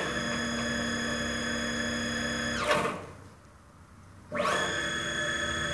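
Stepper motor (4 Nm) spinning a 16 mm, 5 mm-pitch ballscrew at 2000 rpm: a steady whine that climbs in pitch as it accelerates, holds for about two and a half seconds while the ball nut runs the length of the screw, then falls as it decelerates to a stop. After about a second and a half it winds up again for the return run. The tone stays steady at speed, with no whip.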